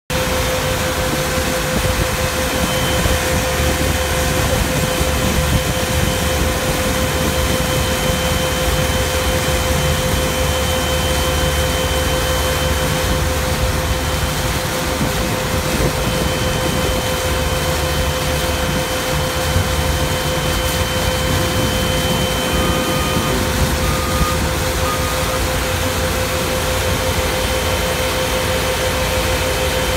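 Mobile snow melter and wheel loader running steadily and loudly, a constant hum tone over the machinery noise. Three short faint beeps sound about three-quarters of the way through.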